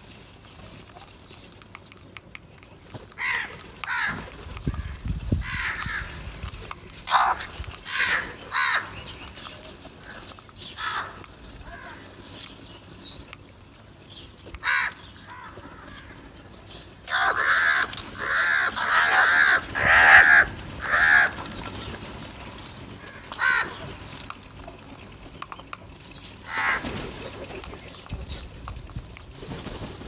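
A flock of house crows cawing: scattered single harsh caws, then a dense run of loud, overlapping caws a little past halfway, and a few more caws near the end.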